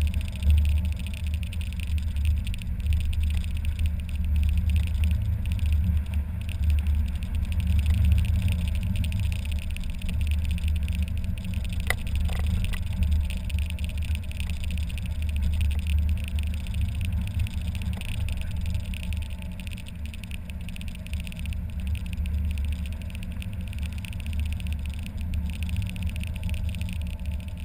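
Mazda MX-5 Miata's inline-four driving at a steady pace with the top down: engine drone mixed with road and wind rumble heard in the open cockpit. Its strength rises and falls a little, with one faint click about halfway through.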